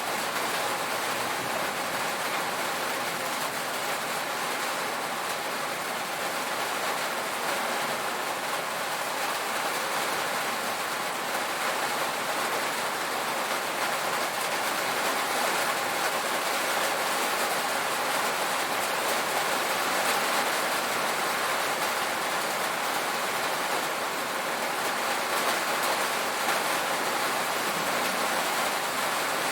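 Steady rain falling on a tin roof, an even patter without pauses or single loud drops.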